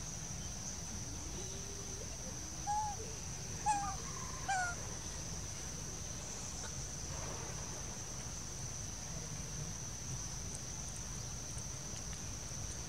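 Three short pitched animal calls about a second apart, a few seconds in, over a steady high insect drone.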